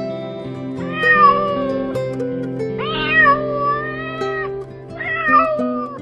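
A domestic cat meowing three times, about a second or more each, the middle call the longest, over background acoustic guitar music.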